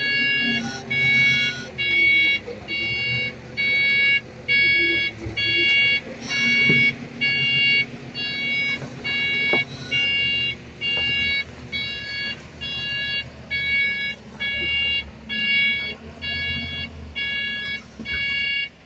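Reversing alarm on heavy earthmoving equipment beeping steadily, about one beep a second, while the machine backs up, with its diesel engine running beneath.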